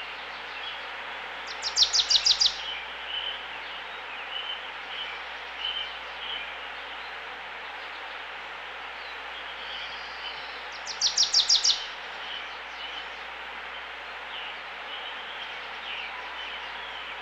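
Outdoor birdsong: assorted birds chirping over a steady background hiss. Twice, about 2 seconds in and again about 11 seconds in, a louder bird gives a quick run of about six sharp high notes.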